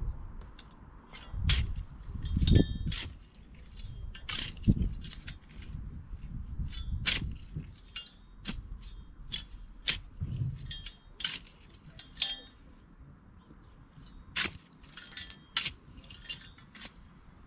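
Garden fork digging potatoes out of stony soil: the metal tines clink and scrape against stones many times, with a few heavier thumps in the first five seconds as the fork is driven into the ground.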